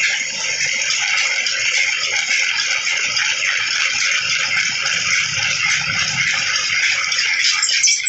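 Drill press boring through a toothed steel bar: the twist drill cutting steel with a steady, high grinding noise as chips curl off the bit.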